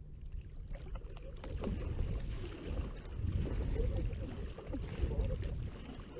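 Water splashing and sloshing as a hooked lingcod of about 20 pounds thrashes at the surface beside a kayak, over a low rumble.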